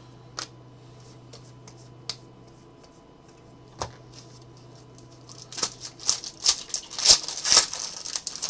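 Trading cards flicked and tapped down onto a stack, then a foil Donruss Elite WWE hobby pack torn open, its wrapper crinkling and crackling loudest in the last few seconds.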